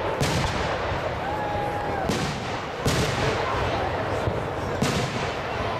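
Aerial fireworks shells bursting, four booms over about five seconds, each followed by a trailing rumble and echo.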